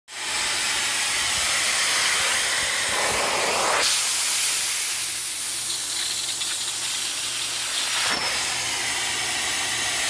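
Upholstery-cleaning extractor running, with a steady hiss of suction through a clear plastic upholstery hand tool over fabric and a low hum underneath. The hiss turns sharper and brighter from about four seconds in until about eight seconds in.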